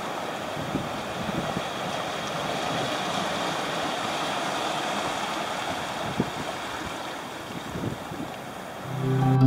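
Small waves washing and breaking over shoreline rocks, with wind blowing across the microphone, a steady rushing noise with a few low gust thumps. Music begins just before the end.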